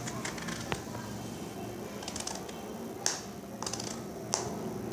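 Small kitchen knife cutting slices from an eggplant held in the hand, with several sharp clicks and snaps as the blade goes through and the pieces drop into a bowl; the loudest clicks come about three seconds in and again near the end.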